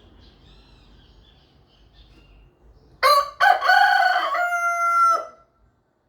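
Rooster crowing once, about halfway in: a short opening note, then a long drawn-out cock-a-doodle-doo that steps up in pitch before cutting off. Faint small-bird chirps are heard before the crow.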